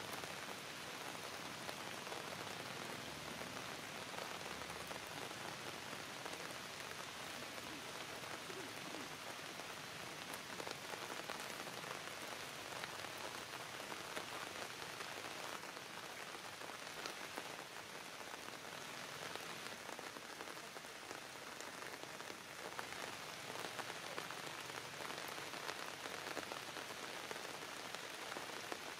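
Steady rain falling, an even hiss made of many small drop ticks.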